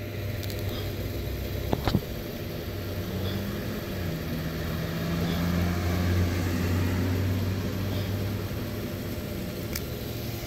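Low, steady hum of a motor vehicle engine running, its pitch shifting a little about four seconds in. A single sharp click about two seconds in comes from a utility lighter being sparked.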